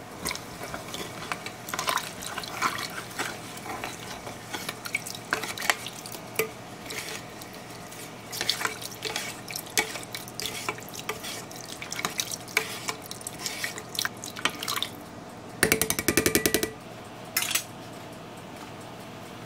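A spoon stirring broth in a pot: irregular sloshing and splashing with light knocks of the spoon against the pot, over a steady low hum. Near the end the stirring stops and a short, fast rattle of clicks sounds.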